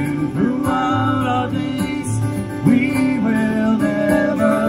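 Music: the school song with guitar accompaniment and long held sung notes.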